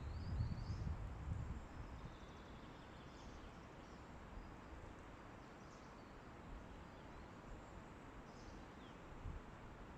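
Wind in a forest, gusting against the microphone with a low rumble for the first second or two, then settling into a steady faint hiss. Faint short bird chirps come every few seconds.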